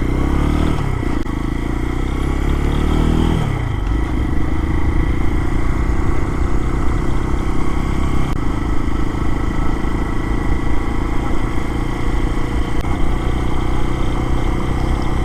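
Lifan KPX250's single-cylinder four-stroke engine running while the motorcycle is ridden. The revs climb for a couple of seconds, drop about three and a half seconds in, then hold steady at a cruise.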